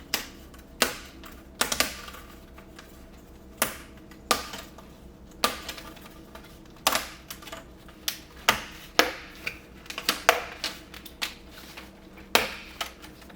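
Plastic retaining clips of a laptop screen bezel snapping loose as the bezel is pried off by hand: a series of sharp clicks at irregular intervals, about one or two a second.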